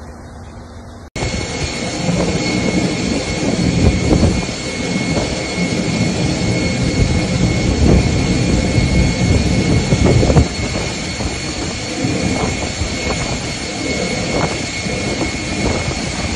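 Jet airliner's engines running as it moves through standing floodwater, throwing up spray. The steady engine noise cuts in about a second in, with a low rumble and two thin, high whining tones held throughout.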